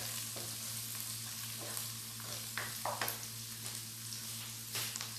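Chopped garlic and onion sizzling steadily in olive oil in a wok, with a spatula scraping and tapping against the pan a few times. A steady low hum runs underneath.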